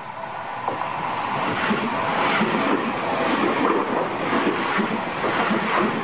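Seibu 001 series Laview electric limited express train passing close by, its wheels and running gear on the rails growing louder over the first second or two and then holding at a loud, rough rumble as the cars go past.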